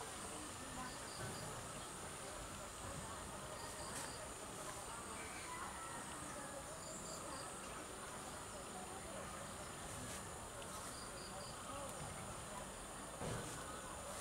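Steady high-pitched insect buzz, with a short run of three or four quick chirps recurring every three to four seconds. A single click sounds near the end.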